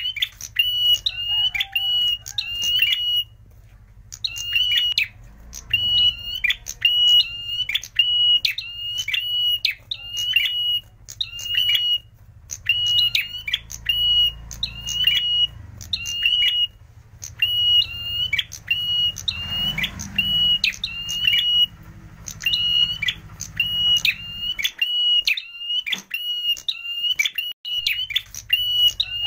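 Ashy tailorbird (prenjak merah) singing: sharp, high repeated notes in quick clusters, about two clusters a second, phrase after phrase with short pauses between. A faint low hum runs underneath.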